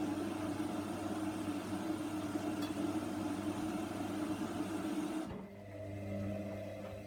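Hoover washer dryer running a wash cycle: a steady motor whir with a noisy wash over it. About five seconds in the noise cuts off suddenly, leaving a steady low hum.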